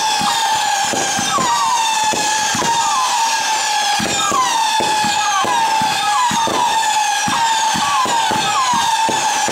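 Fireworks display with whistling comets launched in quick succession: overlapping high whistles, about two a second, each gliding down in pitch and then holding. Underneath are frequent short pops and crackles from the launches and bursts.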